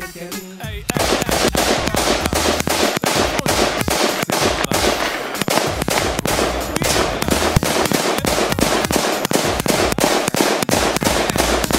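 Windham AR-15 rifle in .223 fired in rapid semi-automatic succession, several shots a second, starting about a second in.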